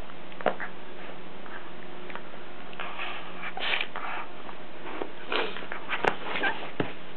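Two puppies, a miniature pinscher and a Cairn terrier mix, scuffling in a blanket: scattered short rustling noises and light clicks, with one sharp click about six seconds in.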